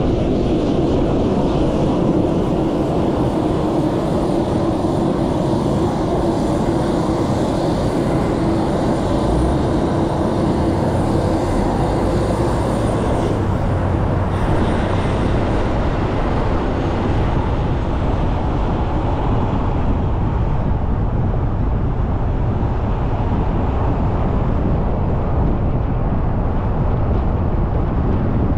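Steady rumble of a car being driven: road and wind noise, with a low hum that fades about halfway through.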